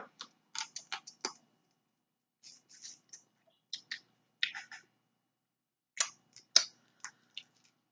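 Close-up eating sounds from snow crab: scattered soft clicks and wet smacks in small irregular clusters, with short gaps between them.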